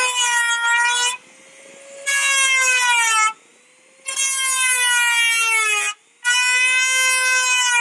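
Corded Dremel-type rotary tool with a cutoff wheel cutting a slot in a car's steel fender. Its high whine runs throughout and swells into four loud spells of grinding as the wheel bites into the metal, the pitch sagging under load.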